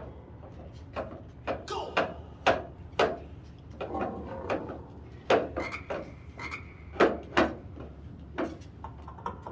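Irregular series of sharp knocks and clacks, about a dozen over several seconds, unevenly spaced.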